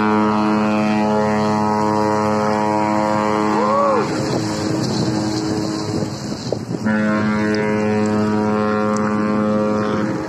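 Large ship's horn sounding two long steady blasts, the first about four seconds long and the second about three, with a short gap between. This is a farewell salute between passing Hurtigruten ships.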